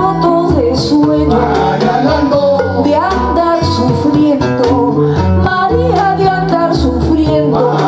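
Live Afro-Peruvian song: a woman's voice singing into a microphone over plucked guitar and a steady bass line.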